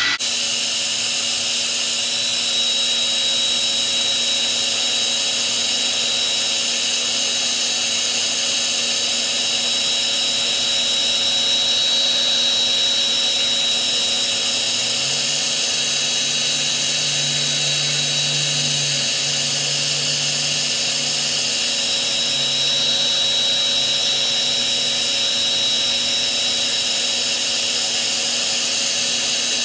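Handheld hair dryer running steadily, blowing hot air with a constant high motor whine over the rush of air.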